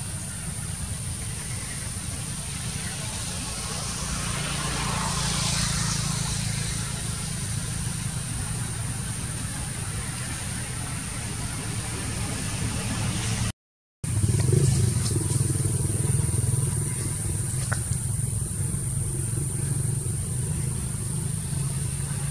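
Steady low engine-like hum running throughout, with a constant high hiss above it; the sound drops out completely for about half a second around the middle, then the hum comes back a little louder.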